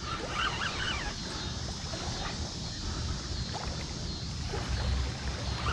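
Steady outdoor noise at the river's edge: a low wind rumble on the microphone with water lapping, and no distinct event.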